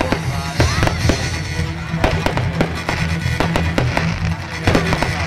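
Fireworks display: many sharp bangs and crackles in quick succession, several each second, over music with a steady bass line.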